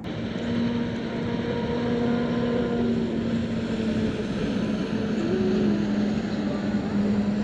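Motorboat engine running out on the lake: a steady drone with a low hum whose higher tones shift a little in pitch as the boat goes by.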